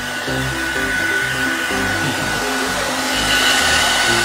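Hand-held hair dryer blowing steadily with a thin high whine over its rush of air, a little louder near the end, as it dries a puppy's fur. Background music plays underneath.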